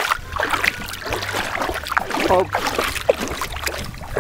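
Shallow river water splashing and lapping as a child wades barefoot through it, over a low steady rumble. A child's short "op" about two seconds in.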